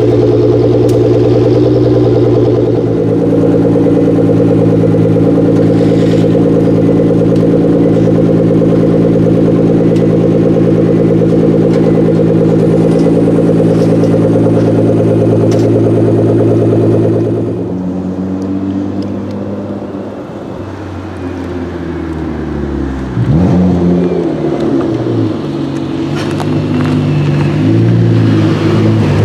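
Nissan GT-R engine held at a steady pitch for a long stretch. About two-thirds of the way in the revs drop, then rise and fall again and again, with a loud climb partway through.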